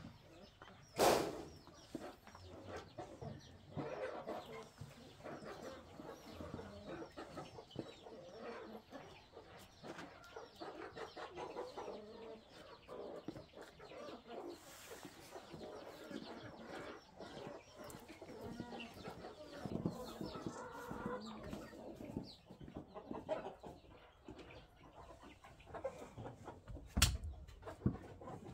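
A hen clucking among her brood of chicks, which cheep on and off in many high, short calls. A louder, sharp sound stands out about a second in and again near the end.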